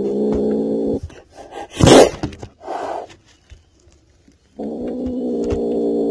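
Frightened black-and-white kitten growling in a long, low, steady tone, breaking off about two seconds in for a sudden, loud spit, then a shorter hiss. It growls again in the same steady tone through the last second and a half.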